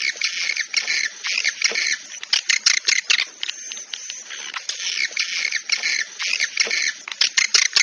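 Swiftlet lure call ('suara panggil'): dense, rapid chirping and twittering of edible-nest swiftlets, in phrases that swell and thin every couple of seconds. It is the kind of track played from swiftlet houses to draw the birds in to nest.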